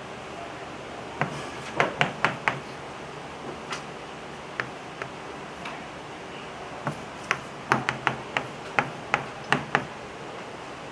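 Chalk tapping and clicking against a blackboard while problems are written out: irregular sharp taps, a cluster between one and two and a half seconds in and a denser run in the second half, over steady room hiss.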